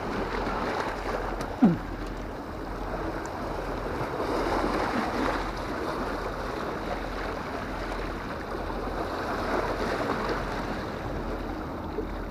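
Sea waves washing over the rocks of a breakwater, a steady rushing that swells a little now and then, with one brief loud knock about a second and a half in.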